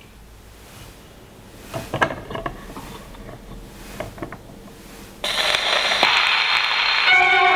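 Antique Thorens wind-up gramophone being handled, giving a few small clicks and knocks as the tonearm and soundbox are swung over the record. About five seconds in, the needle comes down and the loud hiss and crackle of a shellac 78 record's surface starts suddenly, with music beginning just before the end.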